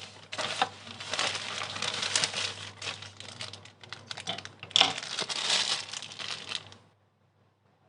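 Packaging crinkling and rustling as it is handled, a dense run of crackles that stops abruptly about seven seconds in.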